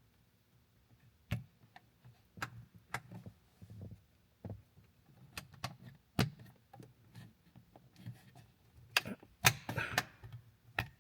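Scattered clicks, taps and knocks of hands working plastic interior light housings and trim in a car cabin, with a short burst of rustling and scraping near the end.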